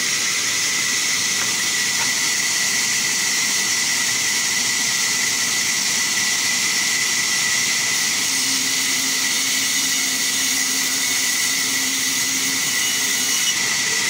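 Vertical band sawmill running steadily, a constant high whine over a hiss of blade noise, as a wooden plank is pushed through the blade by hand.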